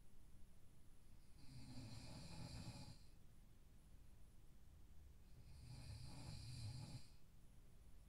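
A person snoring in sleep, faintly: two snores about four seconds apart, each lasting a little over a second, with quiet breathing between them.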